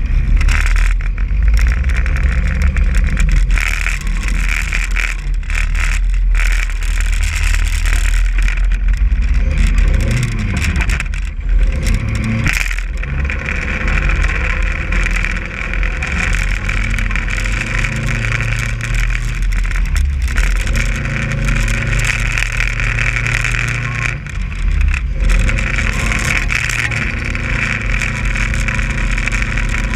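Stripped demolition-derby car's engine running under way, its pitch rising and falling with the throttle a few times, over a steady rushing noise from the moving car.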